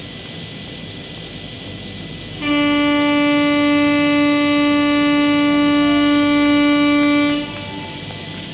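A train horn sounds one long, steady, loud note for about five seconds, starting about two and a half seconds in.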